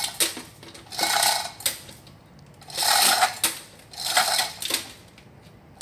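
Manual chain hoist being worked by hand to lower a diesel engine block. Its chain rattles and clinks in three short bursts, about one to two seconds apart.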